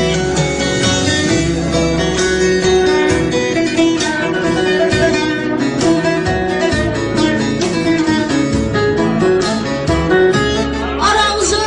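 Instrumental song intro led by plucked string instruments, with a singing voice entering near the end.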